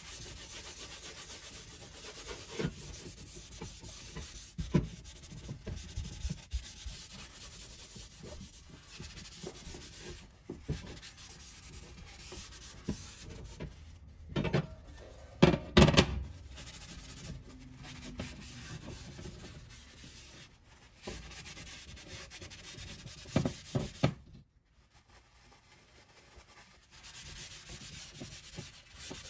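Paper towel rubbing oil over a cast iron Griswold No. 9 griddle, a steady scratchy wiping, while a thin coat of oil goes on for seasoning. About halfway through come a few loud knocks of the heavy griddle being handled and turned over on the glass stovetop.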